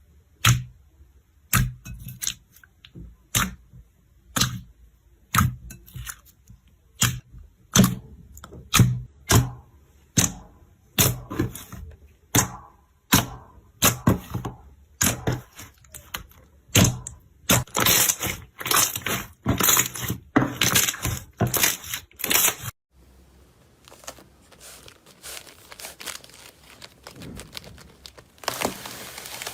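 Slime being pressed and poked, trapped air popping in a series of sharp wet pops, about one a second and then coming faster and louder. About 23 seconds in the pops stop abruptly and give way to a softer, steady crackle of slime being stretched and squished.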